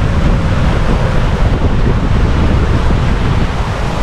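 Wind buffeting the microphone over the steady rush of sea along the hull of a sailing yacht running downwind in a following swell.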